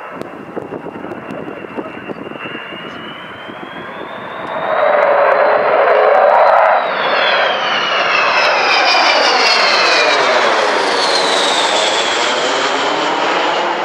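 Avro Vulcan bomber's four Rolls-Royce Olympus turbojets on a low pass. The jet noise jumps to its loudest about four and a half seconds in as the aircraft comes overhead. A high whine rises in pitch, then falls as the bomber passes and climbs away.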